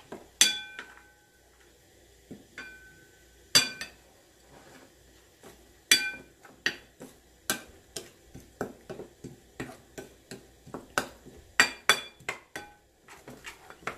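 A plastic spatula stirring and scraping sauce in a ceramic bowl, knocking against the bowl's side in sharp clinks, some with a short ring. The strokes come faster and more rhythmically in the second half.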